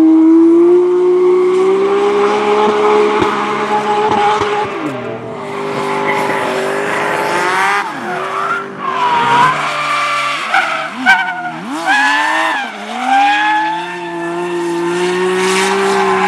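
Drift car engine held at high revs while its tyres squeal through a slide. The revs drop and climb again several times, most sharply about ten to thirteen seconds in, before holding high again near the end.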